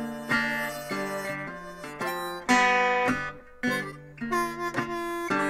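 Resonator guitar played bottleneck style with a metal slide: a blues phrase of separate picked notes that ring on, with a brief dip in the playing a little past the middle.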